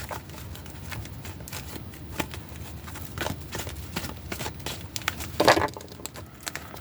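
Tarot cards being shuffled and drawn by hand: a run of soft card flicks, taps and rustles, with one louder card rustle about five and a half seconds in.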